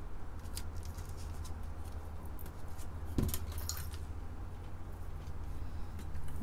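Light clicks and rustles of a printed circuit board and tape being handled. About three seconds in there is a single knock as the board is set down flat on the work mat. A steady low hum runs underneath.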